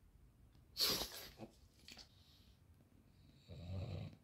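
A pug snorting through its nose while sniffing: a short, sharp snort about a second in, then a lower, longer snuffle near the end.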